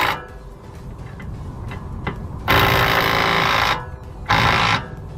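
Impact wrench running in short bursts, driving down a castle nut on the front suspension: a brief burst at the start, a longer one of about a second midway, and a short one near the end.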